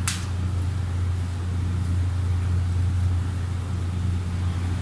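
A steady low hum with a faint hiss over it, and a sharp click right at the start.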